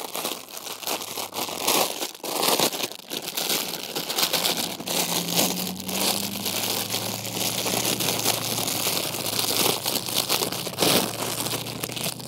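Clear plastic packaging bag crinkling and rustling in the hands as a pair of garden gloves is pulled out of it, in quick irregular crackles.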